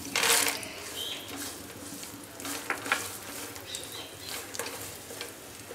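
Roasted peanuts tipped into hot coconut oil and ghee in a steel pan set off a short loud burst of sizzling just after the start. The oil then sizzles steadily while a wooden spatula stirs the nuts and roasted chana dal, with scattered clicks of the spatula and nuts against the pan.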